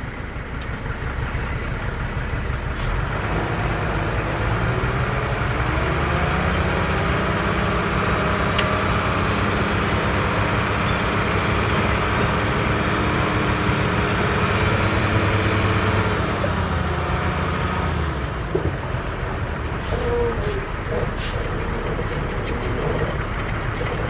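Heavy earthmoving machine's diesel engine revving up about four seconds in, holding a steady high run, then dropping back near the end. A few sharp knocks come near the end.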